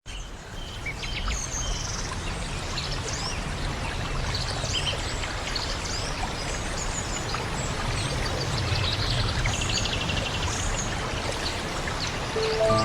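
Steady rushing of flowing water, like a stream, with small birds chirping repeatedly over it. Music comes in just before the end.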